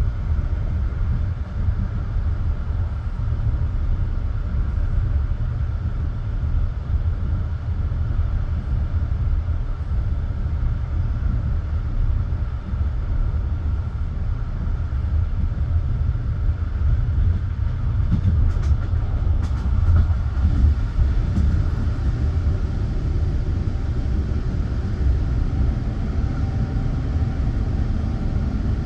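Passenger railway carriage rumbling along the track, heard from inside the car, with a steady low rumble and a few sharp clicks about two-thirds of the way through.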